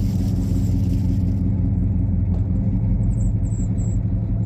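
Truck engine running steadily, a low rumble.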